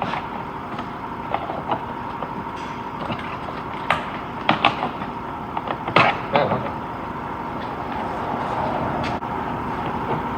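Scattered sharp plastic clicks and knocks as the push-tab retainer clips are worked loose from the plastic cover over the top of the radiator. They sound over steady shop background noise with a faint constant hum.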